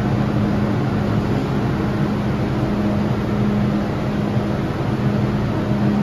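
Steady hum inside a stationary MTR M-train car standing with its doors open: the train's air-conditioning and auxiliary equipment running, with a constant low tone.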